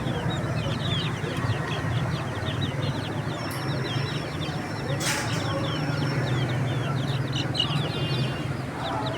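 A crowd of baby chicks peeping nonstop, many short, high, falling chirps overlapping. A steady low hum runs underneath, with a sharp click about five seconds in.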